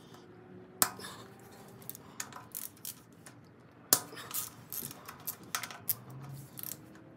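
Ratchet wrench and socket working bolts loose on a tractor's brake housing: scattered metallic clicks and clinks, with a sharp one about a second in and another about four seconds in, then a run of smaller clicks.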